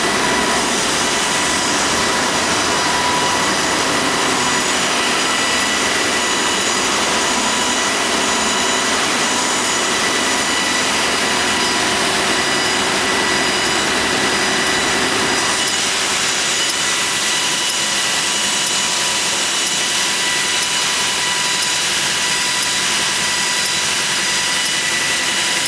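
Sandingmaster wide belt sanding machine running: a loud, steady machine noise with a high whine in it. Its lower part thins a little just past halfway.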